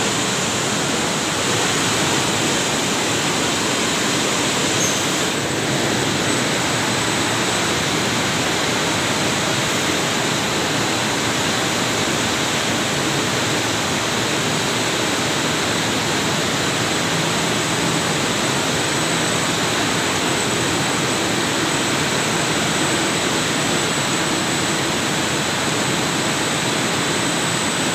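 Steady, even din of textile mill machinery, jigger dyeing machines among it, running continuously, with a thin steady high tone above the noise.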